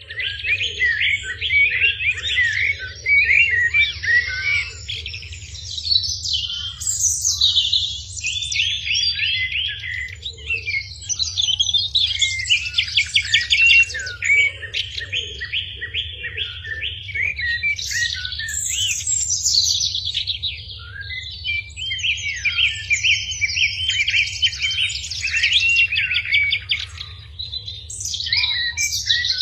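A small songbird singing almost without pause: fast chattering trills and chirps, with short breaks of a second or so. A faint steady low hum runs underneath.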